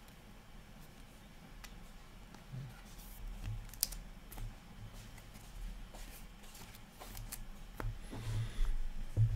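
2021-22 Upper Deck Extended Series hockey cards handled by hand, fingers flicking and sliding through the cards with light, irregular clicks and snaps of card stock. Soft thumps near the end as cards are set down on a stack on the table.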